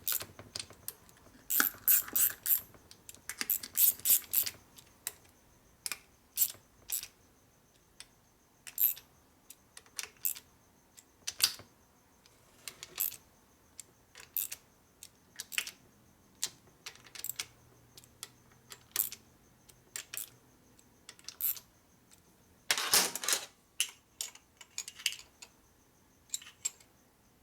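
Hand tools tightening the Allen bolts on a shovelhead engine's cam cover: scattered sharp metallic clicks and clinks, some in quick runs, with a longer, louder clatter near the end.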